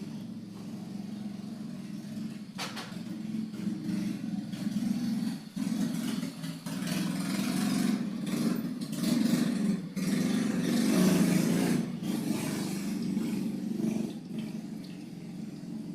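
A motor engine running with a low, wavering hum that swells louder from about halfway through and eases off near the end.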